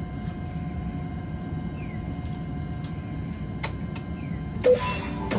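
Hakodate city tram running, heard from the cab: a steady low rumble of wheels and motor with a faint steady whine and a few light clicks. Near the end comes a short loud clunk, followed by a hiss.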